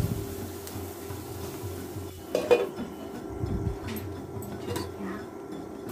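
Wooden spatula scraping and stirring chopped onions and green chillies in a non-stick frying pan over a faint sizzle. About two and a half seconds in, a glass lid is set on the pan with a clank, followed by a few light clicks.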